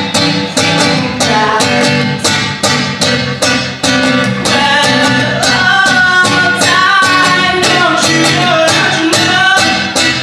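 Acoustic guitar strummed in a steady rhythm, with a man singing a melody over it from about halfway through.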